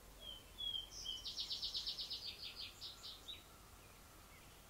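A songbird singing one song: a few short high introductory notes, then a rapid trill of about six notes a second that fades out near the end.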